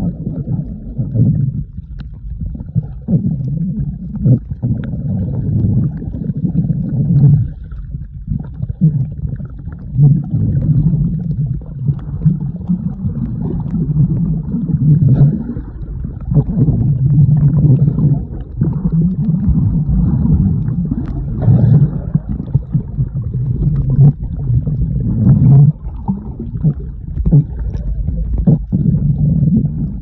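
Muffled underwater sound from a camera held below the sea surface and moved through the water: a low rushing rumble of water against the microphone that swells and fades every two or three seconds.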